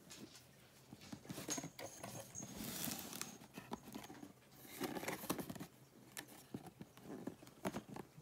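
Faint handling of a cardboard box and a paper leaflet as the box is opened: scattered taps and rustling, busiest about three seconds and five seconds in.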